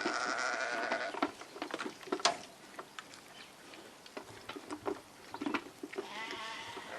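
Livestock bleating: one call about a second long at the start and another starting near the end, with scattered light knocks and rustles between.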